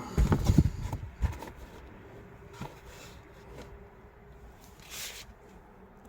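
Handling noise: a cluster of low thumps and rustling in the first second and a half, a sharper knock just after, then a short rustle about five seconds in over a faint steady hum.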